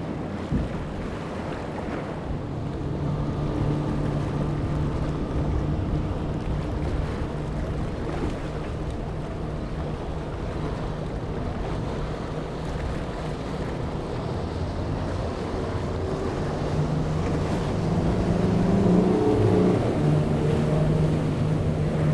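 Yamaha outboard motors on center-console boats running at speed through rough inlet water, a steady engine drone over splashing water and wind. The engine sound grows louder in the second half.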